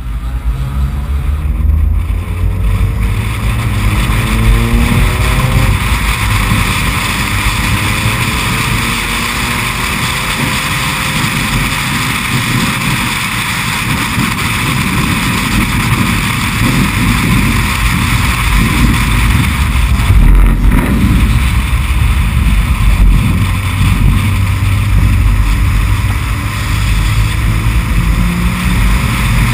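Race car engine accelerating, its revs rising in several steps, then wind rushing over a hood-mounted camera at speed with the engine running underneath.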